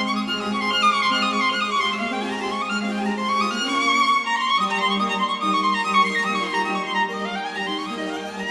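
Background music: a violin playing quick rising and falling runs over sustained low notes.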